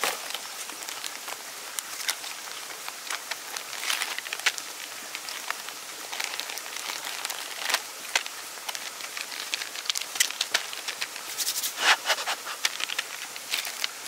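Plastic and foil food packets rustling and crinkling as they are handled and pulled apart, in irregular crinkles of varying strength, the strongest cluster near the end.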